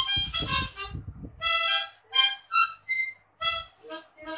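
BEE harmonica played by mouth: a run of short separate notes and chords with brief gaps between them.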